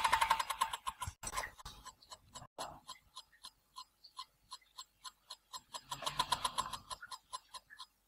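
Tacx Booster turbo trainer's brake unit spinning, giving a weird ringing, steely tick that repeats steadily; the ticks slow and fade over the first few seconds, then quicken and grow louder again about six seconds in. The owner says the disc inside seems wobbly.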